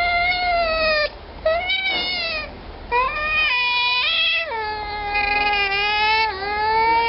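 Baby African clawless otter calling while suckling from a milk bottle: a run of long, high, whistling calls with short breaks between them. One call near the middle jumps up in pitch and drops back, and the later calls are lower.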